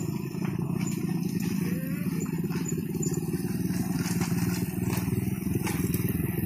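Motorcycle and scooter engines running as several riders pass one after another over a rough stone road: a steady low engine drone with a few short clicks.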